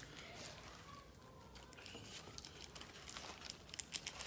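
Quiet mealtime sounds: faint scattered clicks and light rustling of food, takeout containers and paper napkins being handled at the table.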